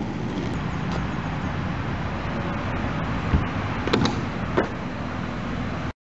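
Skateboard wheels rolling on concrete, then a deep knock from the board's pop, a sharp clack as the board lands on a ledge, and another clack about half a second later as it comes off. The sound cuts off abruptly near the end.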